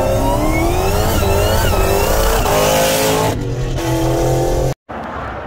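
Car engine accelerating hard, its pitch climbing and dropping back at each gear change, heard from inside a following car. About four and a half seconds in it cuts off abruptly, then gives way to quieter road noise.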